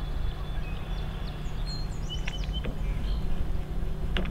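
Small birds chirping, with short high calls and quick falling notes, over a steady low rumble; a couple of sharp clicks sound about two seconds in and near the end.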